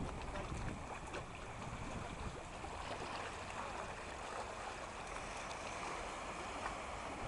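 Shallow sea water lapping and sloshing in small waves, a steady wash of noise.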